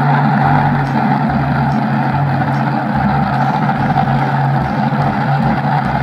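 Steady motor-vehicle engine running sound, a constant low hum with a higher drone over it, dubbed in as a sound effect for a toy garbage truck.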